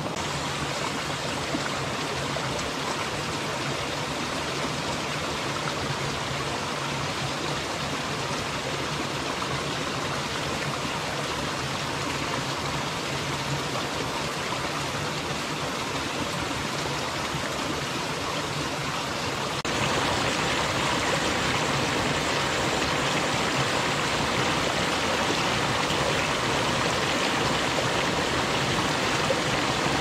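Steady rushing of a flowing stream, which turns suddenly louder about twenty seconds in.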